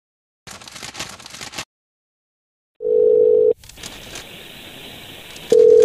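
Paper crumpling for about a second, then after a short silence a telephone ringback tone heard over the line: a steady buzzy tone, briefly, then line hiss, then the tone again near the end as the call rings through.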